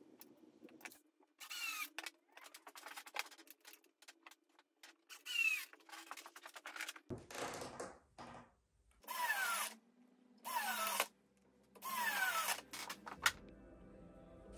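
Power screwdriver driving screws through metal offset clips into a wooden picture frame. There are five short runs, each with a whine that drops in pitch, with small handling clicks between them.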